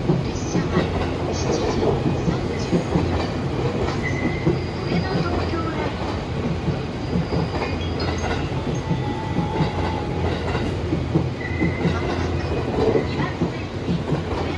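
E257 series electric trains rolling out along the platform: a steady rail rumble with irregular clacks over the rail joints and a couple of brief, high wheel squeals.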